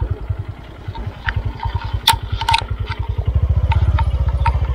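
Small motorcycle engine running at low speed, its firing pulse steady and growing louder about three seconds in, with sharp rattles and knocks from the bike over rough ground.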